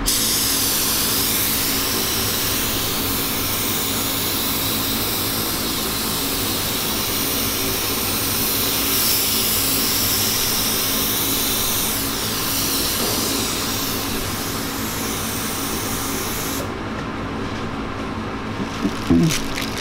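Air-fed spray gun hissing steadily as it sprays activator over hydrographic film floating in the dip tank, cutting off about seventeen seconds in. A steady machine hum runs underneath and carries on after the spraying stops.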